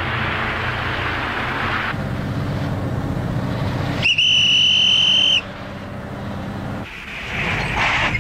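A car engine running as the car drives up. About four seconds in, a police whistle gives one long, loud blast lasting just over a second, signalling the car to stop. Near the end there is a short rush of noise as the car pulls up.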